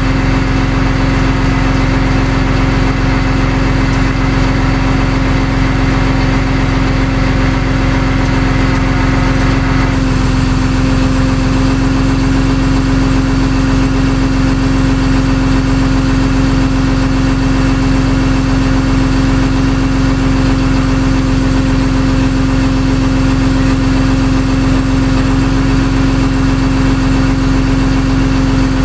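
Vehicle engine running steadily at idle, a constant hum with no change in engine speed; the higher part of the sound shifts slightly about ten seconds in.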